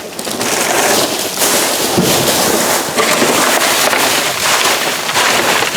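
Trash being rummaged through in a dumpster: a loud, continuous crackling and rustling of plastic bags and packaging being pushed around.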